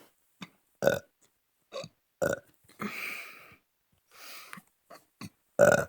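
A person burping over and over in a string of short burps. The loudest come about a second in, just after two seconds and near the end, with softer ones between.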